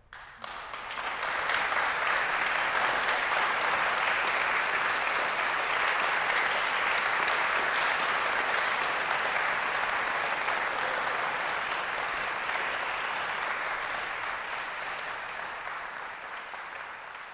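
Audience applauding, starting suddenly about half a second in and slowly tapering off near the end.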